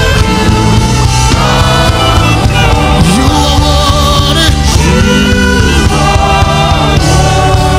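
Live gospel band playing a praise song, with drums, bass, keyboard, electric guitar and saxophone under singing voices.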